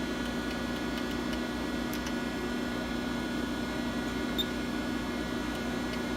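Steady machine hum from a powered-up 1993 Mighty Comet CNC vertical machining center, one low tone and a few higher tones over a constant noise, with a few faint ticks.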